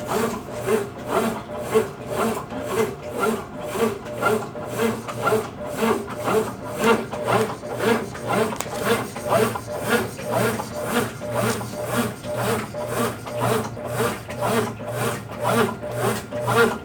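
Consul Facilite 10 kg top-loading washing machine in its wash cycle, agitating a load of bedding and towels: an even back-and-forth churning of water and laundry, about two to three strokes a second, over a steady motor hum. This is a test run after a mechanical overhaul.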